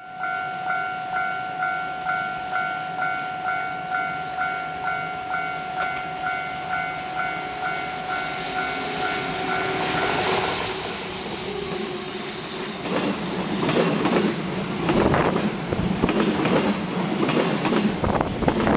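Japanese level crossing alarm ringing about twice a second for roughly the first ten seconds. Then a freight train grows loud as it passes over the crossing, with a heavy rumble and rapid wheel clatter over the rail joints.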